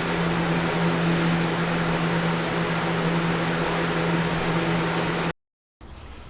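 A motor-driven machine running steadily, a constant low hum under an even rushing noise, cut off abruptly about five seconds in.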